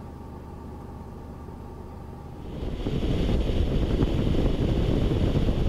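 A quiet, steady low hum inside the Skoda Superb's cabin. About two and a half seconds in, it gives way to a louder, even rush of wind and tyre noise at a camera mounted on the car's front flank as the car drives along the road.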